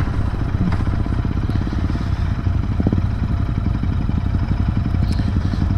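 Royal Enfield Continental GT 650's parallel-twin engine running at low revs with a steady, even pulsing beat as the bike slows toward a stop.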